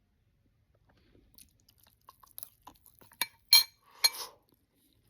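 A spoon clinking against a bowl a few times, the loudest strike about three and a half seconds in, after faint eating sounds.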